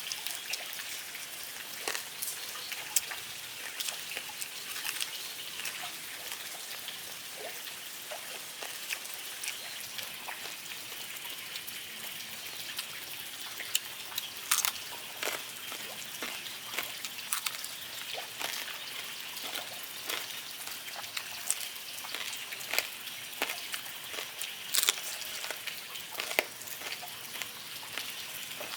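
Pieces of pork belly deep-frying into chicharrones in hot oil: a steady sizzle with frequent sharp, irregular pops and crackles.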